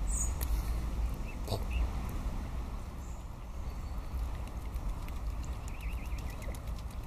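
Mallard ducks quacking softly in a short burst about six seconds in, with small splashes and clicks of mute swans dabbling with their bills at the water surface, over a steady low rumble.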